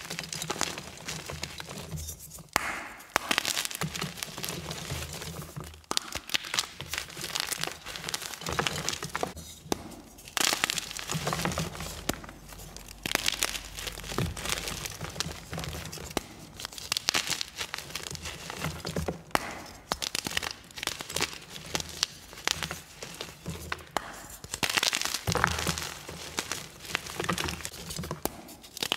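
Blocks of magnesium carbonate gym chalk crushed and crumbled by hand: dense, continuous crunching and crackling as pieces snap off and crumble between the fingers, with a few brief pauses.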